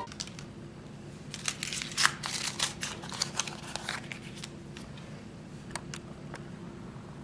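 Paper crinkling as a crumpled note is unfolded and smoothed flat by hand: a run of crackles in the first few seconds, then a few single ones, over a low steady hum.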